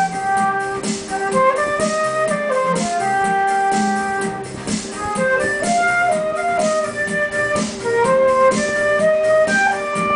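Silver concert flute playing a melody of held and moving notes over an electronic keyboard accompaniment with a steady rhythmic beat.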